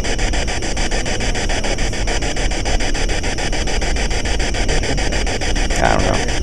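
Steady, loud hissing noise with no clear events in it.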